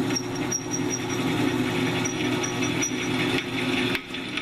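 Drill press running with its bit grinding into a hardened, not annealed, high-carbon steel railroad clip: a steady motor hum under rough cutting noise, with a few pops near the end. The bit is cutting, but not very well, in the unannealed steel.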